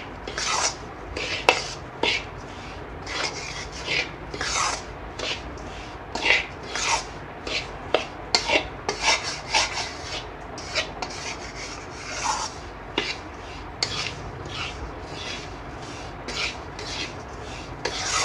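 Metal spoon scraping around a stainless steel kadhai while stirring a dry, crumbly mix of roasted besan, sugar and coconut: repeated gritty scrapes at an uneven pace, about one or two a second.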